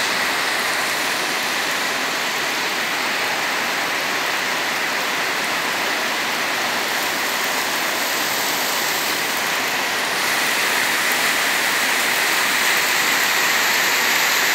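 Heavy rain falling steadily on a wet paved street, a dense even hiss that grows a little louder about two-thirds of the way through as the downpour thickens.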